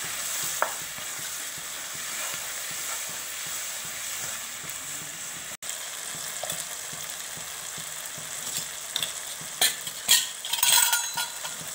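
Chopped shallots, garlic and tomatoes sizzling in oil in a nonstick kadai as they fry down until the tomatoes soften, stirred with a wooden spatula. A few scrapes and knocks of the spatula against the pan come near the end.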